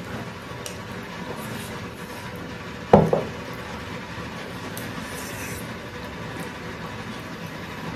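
One sharp knock about three seconds in, with a short ring after it, over a steady background hum and a few faint clicks.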